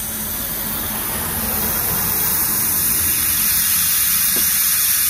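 Compressed air hissing steadily through the valve into a pneumatic triple-bellows air jack as it inflates to lift the car, growing slowly louder.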